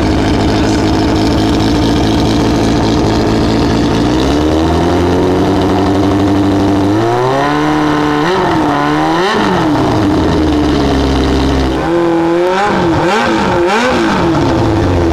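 2002 Yamaha YZF-R6's inline-four engine through an FRT Stealth aftermarket short exhaust. It idles, steps up to a held higher idle, then is revved with sharp throttle blips in two sets, and drops back to idle near the end.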